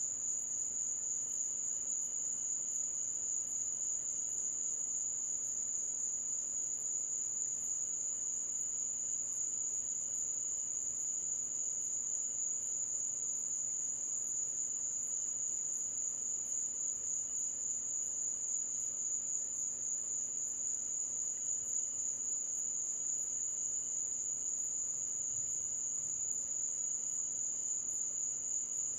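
Night insect chorus: one steady, unbroken high-pitched trill, with a fainter, higher pulse repeating about twice a second.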